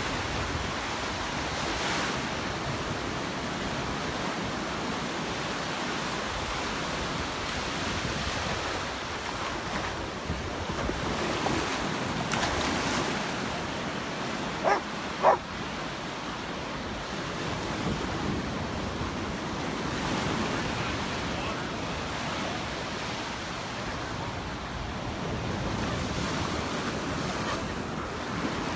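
Surf washing onto the beach, with wind buffeting the microphone. About halfway through, two short sharp calls half a second apart stand out as the loudest sounds.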